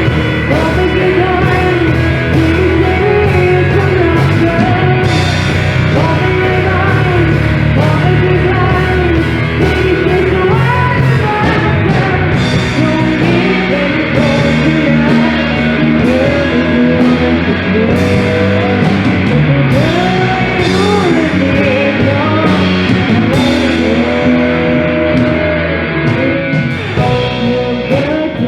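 A voice singing a melody over band accompaniment.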